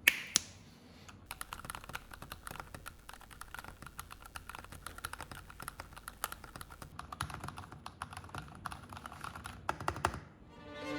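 Fast typing on a custom-built mechanical keyboard: two sharp clacks at the start, then a dense, steady run of key clicks that stops shortly before the end.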